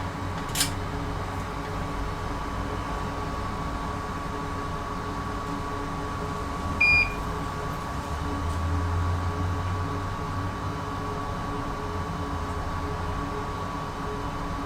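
Small electric fan motor running with a steady high whine over a low hum. A click just after the start, and one short electronic beep about seven seconds in.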